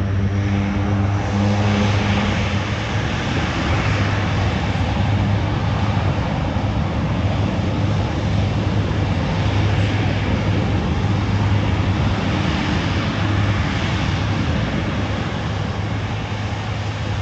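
Aircraft engines running steadily and loudly: a strong low hum over a wide rushing noise, with no real change in pitch.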